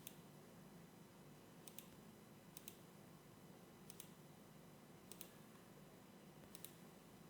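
Faint computer mouse clicks, five of them spaced about a second or more apart, over quiet room tone. They are the clicks of placing points while drawing a sketch line in CAD software.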